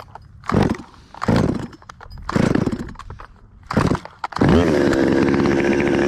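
Stihl chainsaw being pull-started: four quick pulls of the starter cord, and the engine catches on the fourth and runs steadily.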